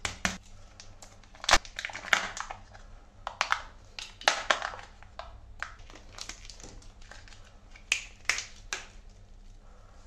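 Kinder Joy egg being opened by hand: its thin plastic shell and foil seal crackle and crinkle as the halves are pulled apart and the seal is peeled off. There are a string of sharp crackles, the loudest about a second and a half in and a cluster near the end.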